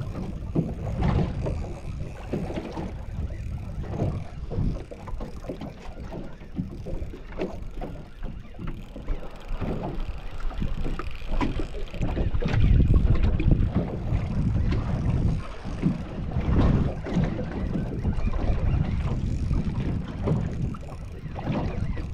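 Wind buffeting the microphone aboard a small boat at sea, an uneven low rumble that surges in gusts, loudest a little past the middle.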